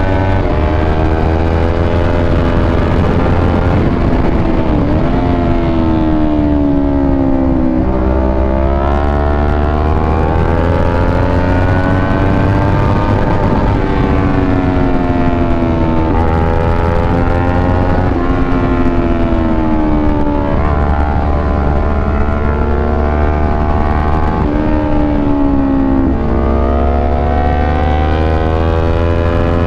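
Kawasaki Ninja 400 parallel-twin engine under way, its pitch climbing steadily and then dropping several times as the rider accelerates, shifts and rolls off, over a low wind rumble.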